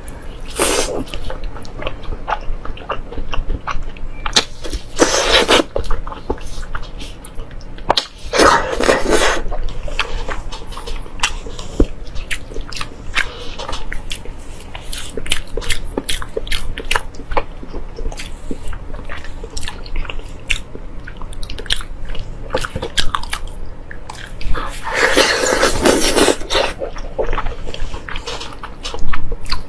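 A person chewing and biting braised pork knuckle close to the microphone: rapid wet clicks and smacks, with a few louder stretches of biting, the longest near the end.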